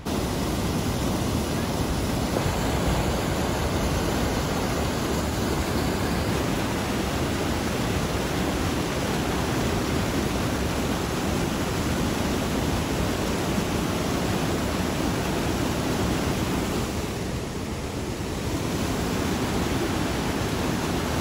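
Rain-swollen river in spate, its fast-flowing water rushing with a steady, even wash of noise.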